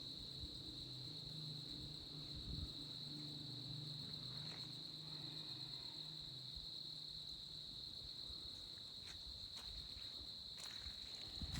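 Insect chorus: a steady, unbroken high-pitched trill, with a faint low hum underneath in the first half and a few faint clicks near the end.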